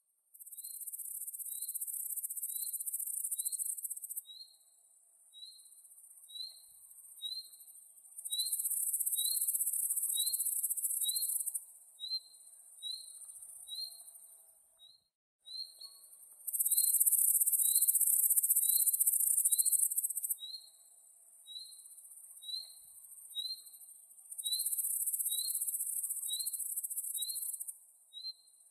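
Cricket chirping steadily, about one and a half short high chirps a second, under a louder, higher-pitched insect buzz that swells for about four seconds at a time and falls back in between, four times over.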